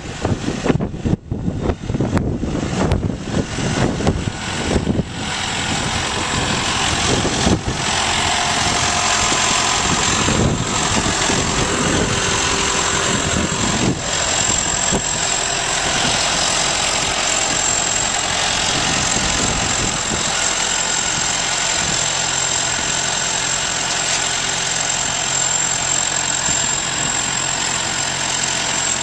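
Farm machinery engine running steadily with a thin high whine over it. For the first few seconds it is broken by an irregular, gusty rumble.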